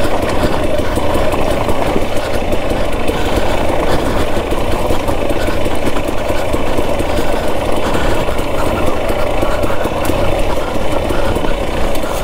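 KTM 250 XC-W TPI dirt bike's two-stroke engine running at a fairly steady pitch.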